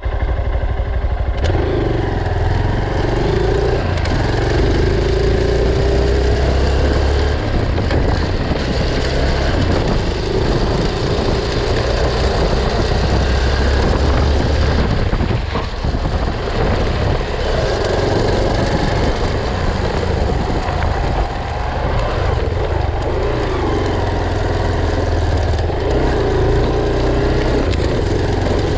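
Honda Bros trail motorcycle's single-cylinder four-stroke engine running while the bike rides, its pitch rising and falling repeatedly as the throttle is worked. Under it is a steady rushing noise from the knobby rear tyre rolling over dirt.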